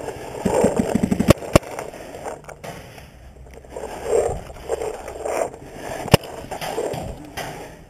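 Paintball markers firing: a quick string of about eight shots in the first second or so, then sharp single cracks soon after and again about six seconds in, with scuffing and rustling of gear in between.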